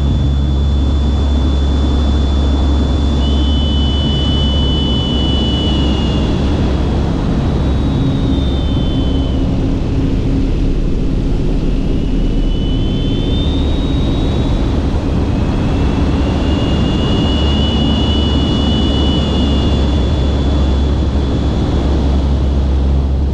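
Piston engine and propeller of an aerobatic airplane heard from an onboard camera, running loud and steady through the manoeuvre with a heavy rush of wind. A thin high whine over it shifts in pitch about halfway through and settles again.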